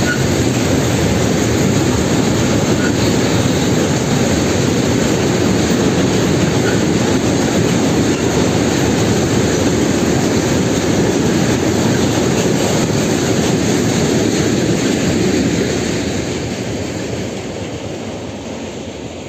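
Freight train of tank wagons rolling past: a steady, loud rolling rumble and rattle of wagon wheels on the rails. It fades gradually from about three-quarters of the way through as the end of the train passes and moves away.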